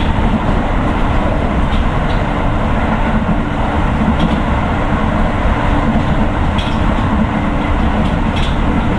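Keio 9000 series electric train running, heard from inside a passenger car: a steady rumble of wheels on rail with a few faint clicks.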